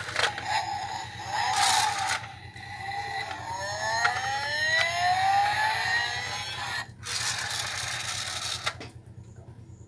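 Toy VW bus's pull-back friction motor and wheels whirring as the bus is rolled back and forth on a tiled floor. The whine rises in pitch through the middle of the stretch, and there is a scraping, whirring rush near the end.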